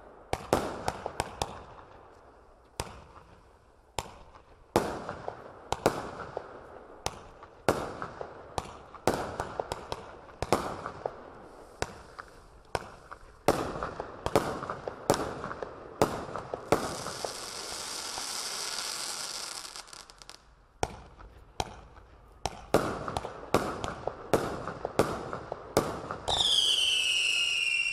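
A Fantastic Fireworks Temple of Stars 40-shot multishot firework cake firing shot after shot: sharp launch reports and bursts, about one to two a second. Roughly two-thirds through, the shots pause for a few seconds of steady hiss. Near the end a whistle shot gives a loud falling whistle.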